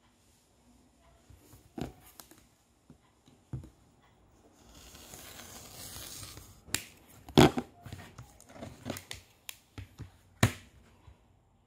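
Rotary cutter blade rolling through a sheet of flat latex slingshot band material along a cutting ruler, a steady hiss lasting about two seconds near the middle. After it, a string of sharp clicks and knocks as the plastic cutting ruler is handled and flipped over, the loudest about seven and a half seconds in.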